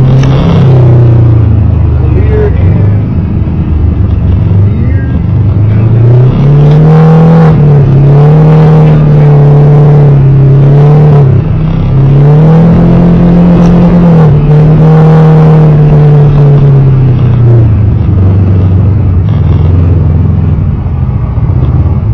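Side-by-side UTV engine heard from inside the cab at trail speed. It runs low at first, revs up about six seconds in and holds a steady higher pitch, drops briefly, then revs up and holds again for several seconds before settling back to a lower pitch near the end.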